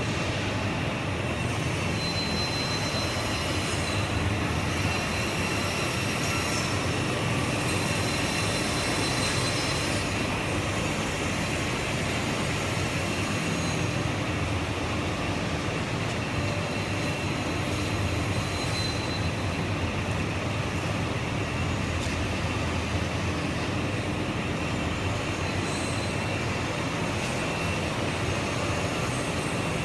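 Two-spindle bench drill press running steadily: an even motor hum with a thin high whine that fades in and out.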